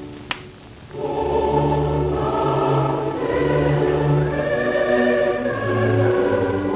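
Mixed choir with orchestra singing, played from a 1948 shellac record, its sound cut off at the top. A short lull near the start holds a single sharp click, and the full choir comes back in about a second in. Faint crackle runs over the music.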